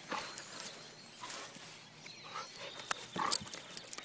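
Doberman growling in short bursts, roughly once a second, while pulling on a leash in a game of tug-of-war, with sharp knocks and rustles from the struggle; the loudest bunch of sounds comes a little after three seconds in.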